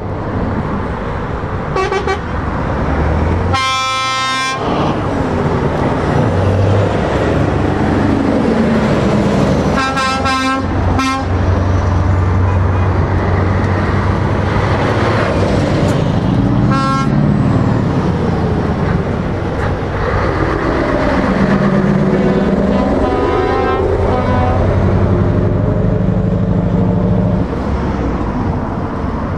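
Heavy trucks, Scania V8s among them, driving past in a convoy with their diesel engines running, and air horns blasting repeatedly over them. The loudest blast comes about four seconds in, a quick volley follows around ten seconds in, and more come later.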